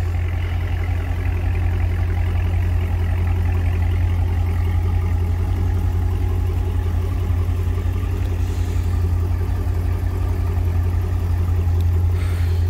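2020 Dodge Challenger Scat Pack Widebody's 392 (6.4-litre) HEMI V8 at idle and light throttle as the car creeps forward, a steady, deep exhaust note through a system with the mid mufflers deleted.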